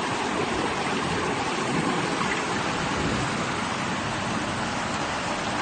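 Strong storm wind blowing as a steady, even rush of noise.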